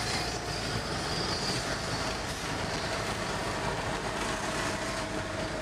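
Steady road and engine noise inside a car driving slowly on a wet street, with a faint steady hum.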